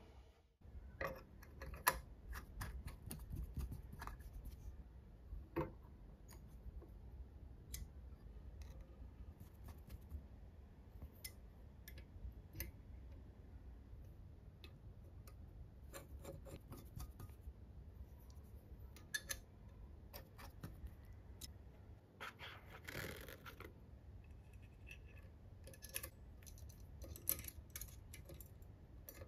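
Faint, irregular light clicks, taps and scrapes of small metal parts being handled and fitted together on a full-metal four-cylinder engine model kit. A longer scraping rustle comes about two-thirds of the way through.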